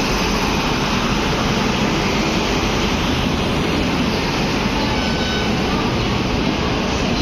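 Steady rumble and rush of a train in motion, an even noise with no separate wheel clacks.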